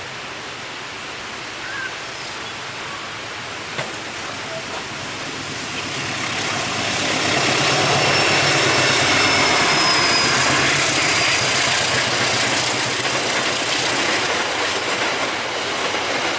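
A train approaching and passing at speed, growing loud about six seconds in and staying loud, with wheels clattering over the rail joints and a thin high wheel squeal.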